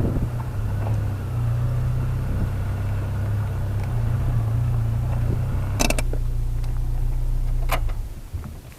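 Car being driven: a steady low engine and road drone, with two short clicks, fading out near the end.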